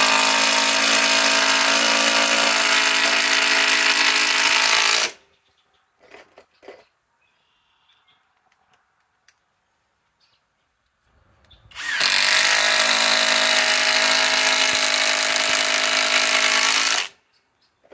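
SKIL PowerCore 20 brushless impact driver, set to its second speed, driving two 4-inch timber-lock screws into a wooden beam, about five seconds of steady impacting for each screw. A few light clicks of handling come in the pause between the two.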